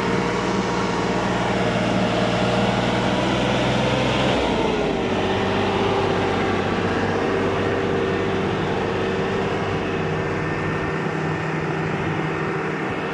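Landini 105 Power tractor's six-cylinder engine running steadily under the load of a corn silage harvester. About four seconds in its pitch drops a little as the engine slows, then holds at the lower speed.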